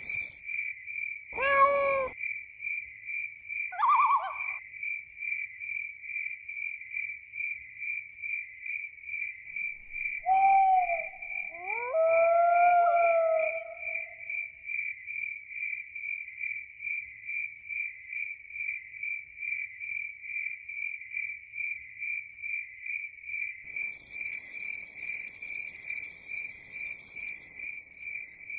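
Crickets chirping steadily at about three chirps a second, with a few short animal calls over them about two and four seconds in and again around the middle. A loud high hiss comes in for a few seconds near the end.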